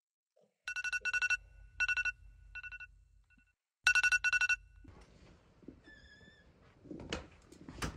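iPhone alarm ringing in groups of rapid high beeps, loud at first, then in fainter bursts, then loud again. After that, a door opens with a short squeak and a couple of knocks.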